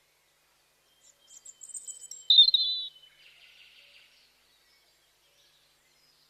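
A songbird singing: a few thin, high chirps, then a loud warbling phrase a little over two seconds in that trails off into a faint, rough trill.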